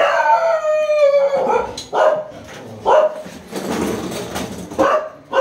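A dog gives one long howl that falls in pitch, then barks several times.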